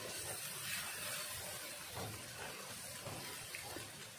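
Blended spice paste sizzling with a steady hiss in a wok as it is stirred with a silicone spatula, with soft irregular strokes under the hiss, the paste being fried until fragrant.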